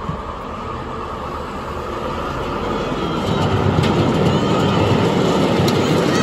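Miniature live-steam Pacific-type (4-6-2) locomotive hauling its ride-on passenger cars along the rails, running noise and steam growing louder over the first three or four seconds as it comes close and passes.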